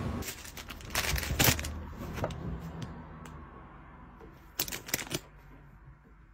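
A handful of sharp clicks and knocks over faint room noise: a few in the first two seconds, then a quick cluster of three about five seconds in.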